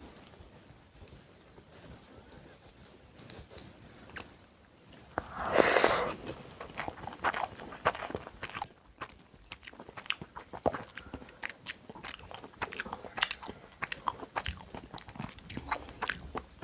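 Close-up mouth sounds of eating chicken biryani: chewing, biting and many small wet smacks and clicks, with one louder, longer crunch about five and a half seconds in.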